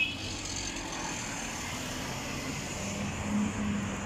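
Road traffic going past: a steady rush of passing cars, with a low engine hum that grows about three seconds in.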